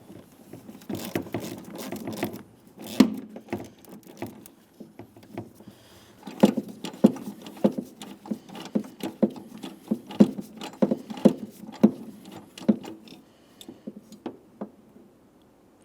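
Ratchet wrench clicking in a long series of short, sharp clicks, about two or three a second through the middle stretch, as the 13 mm hinge mounting bolt is backed out.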